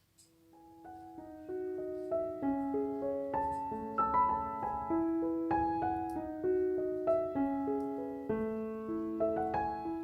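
Background piano music: a gentle melody of sustained, ringing notes, fading in over the first second.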